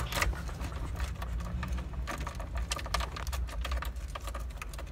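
A key being jiggled and twisted in a Jeep's ignition lock, giving irregular small clicks and rattles. The key won't turn because it belongs to a different Jeep.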